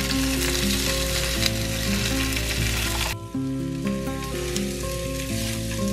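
Freshly added raw vegetables sizzling in hot oil in a non-stick frying pan, stirred with a spatula. The sizzle drops suddenly about three seconds in and carries on more quietly, with soft background music throughout.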